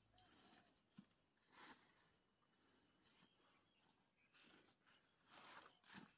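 Faint insect trilling: a high, pulsed trill repeated in runs of about a second with short gaps. A few soft rustles of cut grass stalks break in, the loudest near the end.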